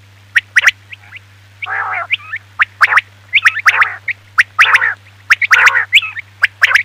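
Quail calling: quick groups of sharp, high whistled notes alternating with lower, wavering calls, repeated about every second, over a steady low hum.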